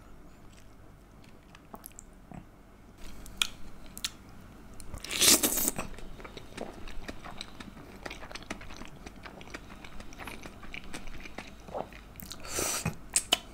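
Close-miked eating of stir-fried udon noodles with chopsticks: slurping and wet, clicking chewing sounds, with a louder slurp about five seconds in and another near the end.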